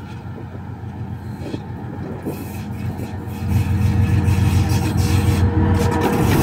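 A 2TE10M twin-section diesel locomotive running light, its two-stroke 10D100 diesel engines rumbling as it approaches. The sound grows clearly louder about halfway through, and a steady hum joins near the end.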